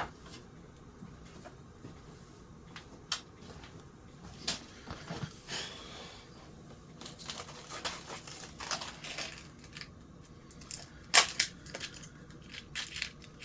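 Hands handling ceiling fan parts and small tools on a workbench: scattered irregular clicks, taps and light knocks with some rustling, the sharpest knock about two-thirds of the way through.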